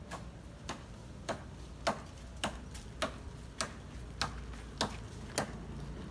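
Sharp, evenly spaced ticking, roughly three ticks every two seconds, over a steady low rumble.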